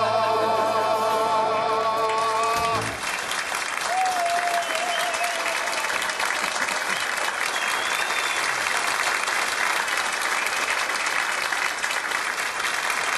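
The song's last note is held with vibrato by the voices and band and cuts off about three seconds in. Then an audience claps steadily.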